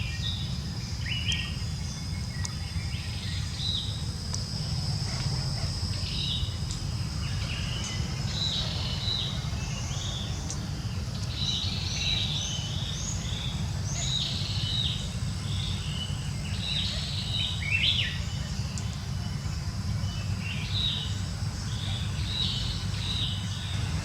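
Small birds chirping in short high bursts, scattered all through, over a constant low rumble of outdoor background noise and a thin steady high buzz.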